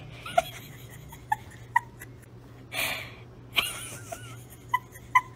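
Doberman puppy making short, high little squeaks, five or so spaced irregularly, with a short breathy puff about three seconds in and a faint wavering whine just after.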